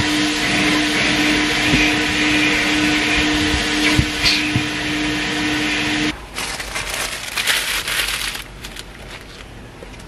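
Car-wash vacuum hose running inside a car's cabin, a loud steady suction noise with a hum that cuts off suddenly about six seconds in, followed by quieter knocks and rustling as the hose is handled.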